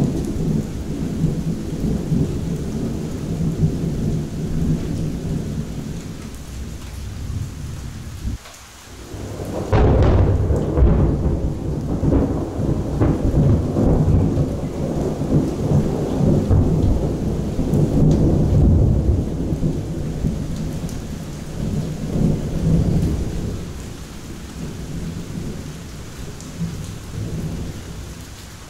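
Thunder rolling over steady rain. The rumble eases briefly, then a fresh, louder peal breaks in about a third of the way through. It rolls on for several seconds and fades slowly by the end.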